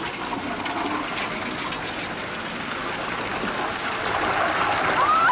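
A steady rushing, hissing noise like gushing water, growing gradually louder, with a wavering whistle-like tone starting right at the end.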